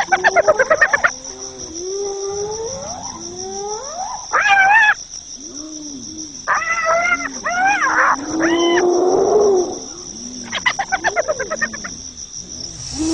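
Spotted hyenas calling to one another during play and rank-sorting: rising whoops, short pitched yelps, and bursts of rapid giggling about a second in and again near the end. Crickets chirp steadily underneath.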